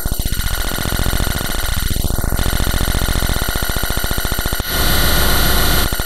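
A harsh electronic buzzing noise. A sweeping filter pulls its tone down and back up over the first two seconds. A louder burst of hiss lasts about a second near the end.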